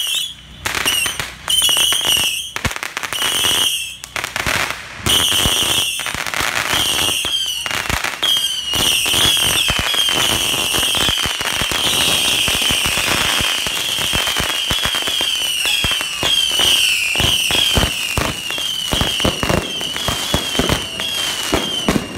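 Fireworks going off at close range: a rapid string of pops and bangs mixed with many shrill whistles. The whistles come singly at first, then from about five seconds in overlap into a near-continuous wavering shriek over the crackle.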